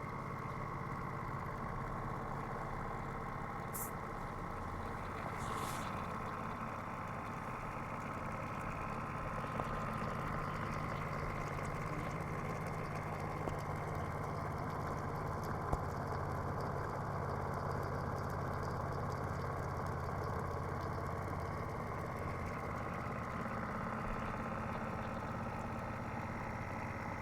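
A 3D-printed motor-generator running steadily: a constant low hum with a steady whine above it, and a few faint ticks.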